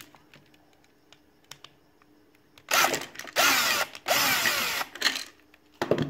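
Cordless power drill with a T20 Torx bit backing out the screws of a steering-wheel switch assembly, in three short runs starting about three seconds in.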